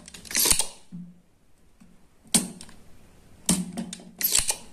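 Spring-loaded desoldering pump (solder sucker) being cocked and fired to draw solder off circuit-board pins: a series of sharp snaps and clicks, some with a short hiss, the loudest about half a second in and again near the end.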